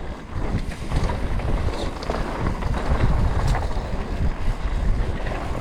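Canyon Spectral 125 mountain bike ridden along a dirt trail: wind buffeting the action camera's microphone over a steady rumble of tyres on the ground, with scattered knocks and rattles from the bike.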